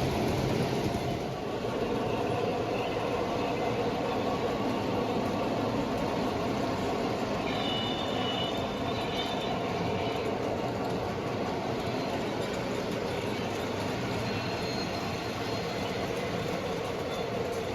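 Model train running steadily on the layout's track: a continuous rolling, motor-and-wheel sound, with a faint high wheel squeal about eight seconds in.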